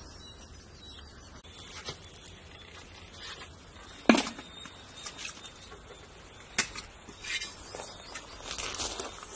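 Large aluminium cooking pot being handled: a sharp knock about four seconds in, another a couple of seconds later, then a run of smaller knocks and rustling near the end.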